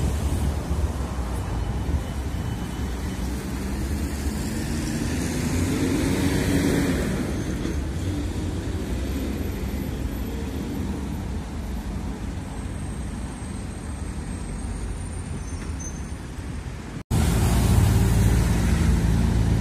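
Road traffic on a wide city street: cars and vans passing with a steady low rumble of engines and tyres, one vehicle swelling past about a third of the way in. Near the end the sound cuts off for an instant and returns louder.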